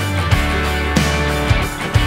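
Background rock-style music with a steady beat and sustained bass notes.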